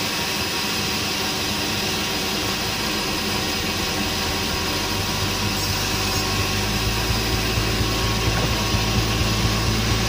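Sawmill band saw running steadily with machine noise while sawn wood is handled at the carriage. About seven seconds in, a low hum with a regular knocking grows stronger.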